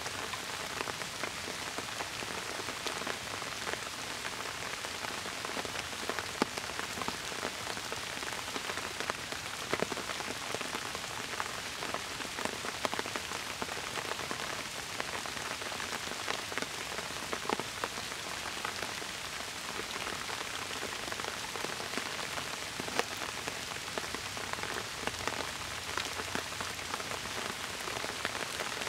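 Steady rain falling on bamboo foliage, with many single drops ticking sharply through it.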